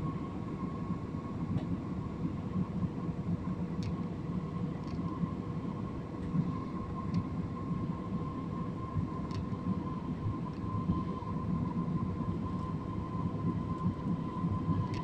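Jet airliner cabin noise in flight: a steady deep rumble of engines and airflow, with a faint steady whine held above it.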